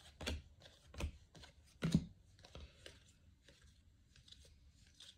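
Baseball trading cards being handled and flipped through, a few short card snaps and rustles about a second apart, then only faint ones.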